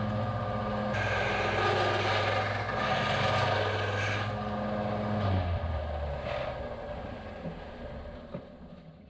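Benchtop belt-and-disc sander running, with a metal bar-stock part pressed against the disc in repeated passes that make a grinding scrape. About five seconds in the sander is switched off, and its motor hum drops in pitch and fades as it winds down.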